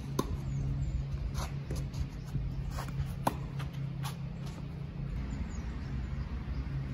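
Tennis rally on a clay court: several sharp pops of the ball off the rackets and bouncing, spread over the first four seconds, over a steady low hum.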